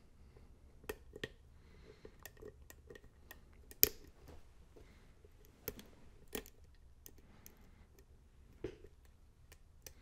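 Faint, scattered metallic clicks and scrapes of a hook pick working the pins of a pin tumbler lock cylinder held under a tension wrench, with one louder click about four seconds in.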